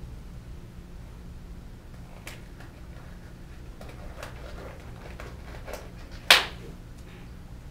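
Large plastic storage tub being handled at its lid: a few light clicks and knocks, then one sharp, loud plastic snap a little past six seconds in.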